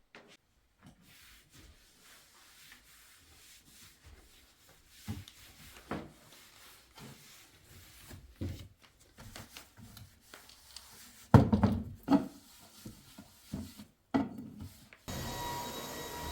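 Objects being handled: soft rubbing and scraping with light knocks, and a few louder clatters about eleven to twelve seconds in. Near the end a steady machine hum with a faint whine starts up.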